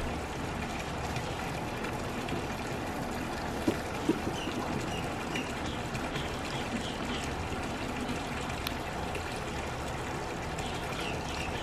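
Steady sound of running, trickling water, with a few faint short chirps now and then.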